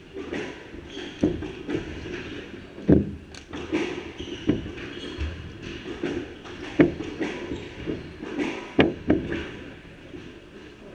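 A squash rally: the ball is struck by rackets and smacks off the court walls in sharp, irregular cracks, about eight of them a second or so apart, echoing in the enclosed court. Footsteps scuffle on the wooden floor between the shots.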